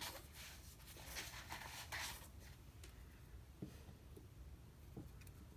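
Faint rubbing for about two seconds, then a few soft taps: a hand moving over and touching a silicone repair mat.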